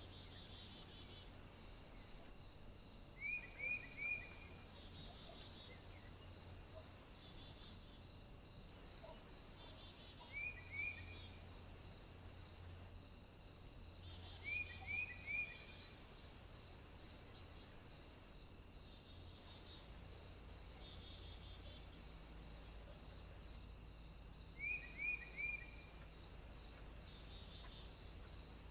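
A bird calling in short groups of three or four quick, falling chirps, with a few seconds between groups, over a steady high hiss.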